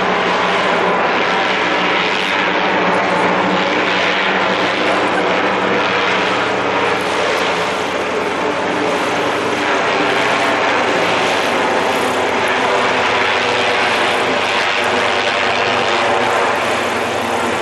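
Zeppelin NT airship's piston engines and propellers running steadily at takeoff power as it passes low overhead.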